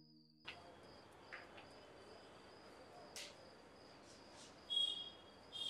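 Night ambience of crickets chirping in a steady high trill over a faint background hiss, with scattered short chirps and one louder brief chirp near the end.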